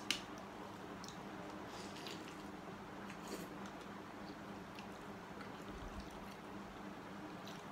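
Two people quietly eating noodle soup: faint slurping and chewing, with a few light clicks of utensils against the bowls, over a steady faint hum.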